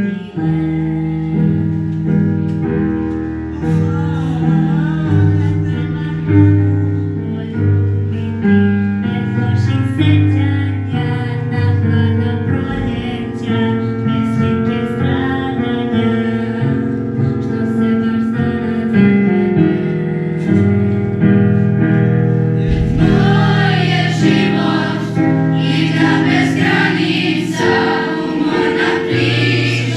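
Children's choir singing with piano accompaniment. About three quarters of the way through, the singing becomes fuller and brighter as more voices join.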